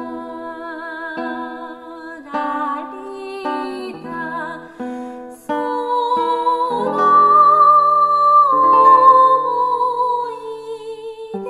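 A slow, tender song: a voice sings a legato melody with vibrato over plucked guitar accompaniment, swelling about two-thirds of the way in on a long held high note that then steps down.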